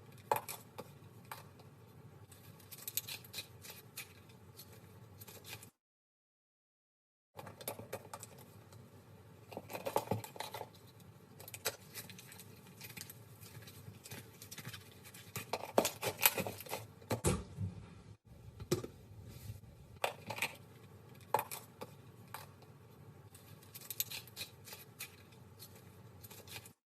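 Slime being squished and poked by hand, giving irregular crackling clicks and small pops. The sound drops out for a moment about six seconds in.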